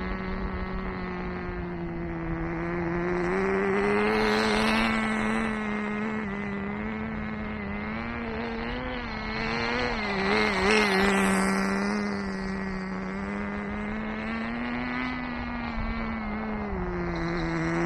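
Nitro RC car's small two-stroke glow engine running at part throttle during break-in, with a steady buzz. Its pitch rises and dips gently with the throttle, and it grows louder and softer as the car moves around, loudest about four and ten seconds in and again near the end.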